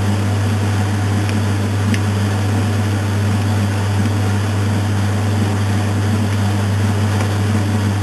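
2002 Maytag Atlantis top-loading washing machine agitating a load: a steady motor and drive hum, with water and clothes churning around the agitator.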